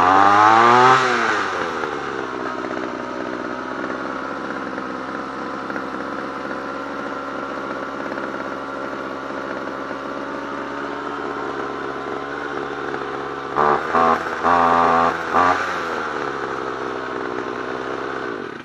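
Homelite two-stroke string trimmer engine running: revved high at first and falling back to a steady idle, then given several short throttle blips near the end before it cuts off. The owner thinks its carburetor needs a high-speed mixture adjustment.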